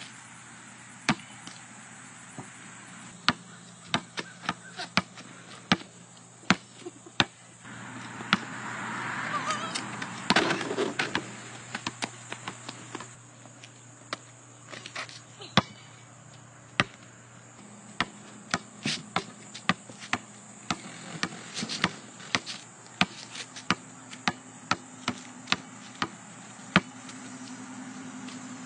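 A basketball bouncing on a concrete court, sharp single bounces and short runs of dribbles at irregular intervals. A louder stretch of noise runs from about eight to eleven seconds in.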